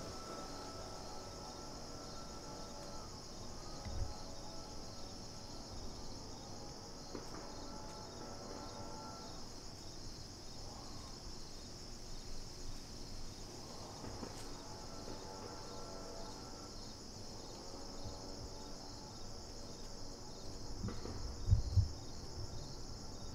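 Steady high-pitched insect chorus in woodland, with a fainter hum that fades in and out. A small knock about four seconds in and two loud low thumps near the end.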